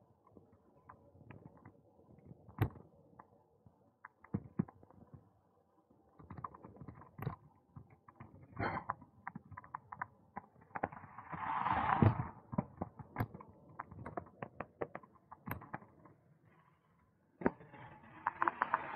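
A bicycle ridden over a tarmac path, rattling with irregular clicks, creaks and knocks. A car passes on the road alongside about two thirds of the way in, a rush that swells and fades. Near the end a steady rushing noise rises again.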